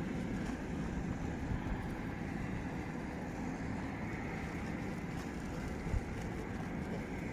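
Steady low rumble of wind on the microphone, with one short knock about six seconds in.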